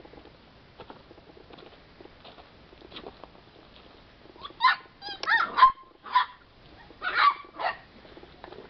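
Young Border Collie pups barking: a run of about six short, high yaps in the second half.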